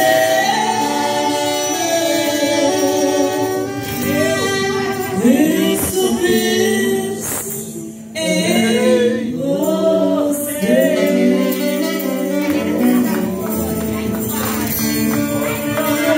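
A small live band playing, a woman singing into a microphone over acoustic guitar. The music dips briefly about halfway, then goes on.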